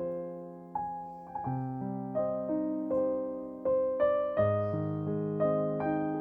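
Background music: a solo piano playing a slow, gentle melody, notes struck one after another and left to ring.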